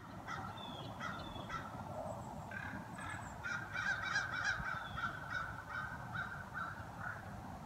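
Several wild birds calling and chirping, really loud, with a dense run of repeated calls through the middle. Under them is a low steady rumble of traffic from a nearby freeway.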